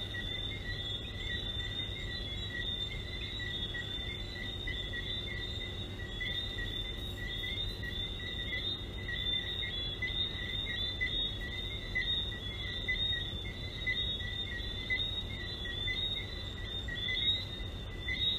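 Chorus of many frogs: short, high chirping calls overlapping continuously, over a steady low hum.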